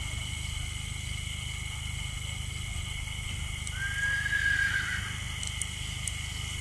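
A horse whinnying once, a single pitched call about a second long a little past halfway through.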